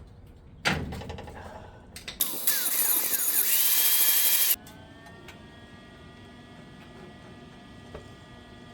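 A sharp metallic knock, then a power tool run on the door hinge for about two seconds, with a high hiss and whine that cuts off suddenly, leaving faint fading tones.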